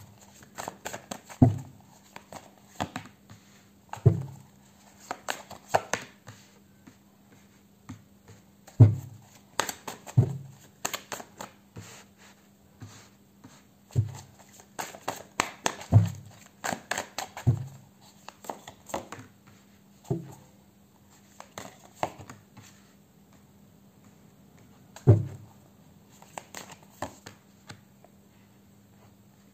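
Tarot cards being handled and dealt one at a time onto a cloth-covered table: irregular soft thumps as each card is set down, with ticks and rustles of the deck between them every second or two. A faint steady hum runs underneath.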